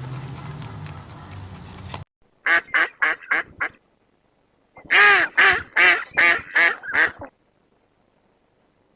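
A bird calling in two quick runs of short, repeated calls, about five and then about seven, after steady background noise cuts off abruptly about two seconds in.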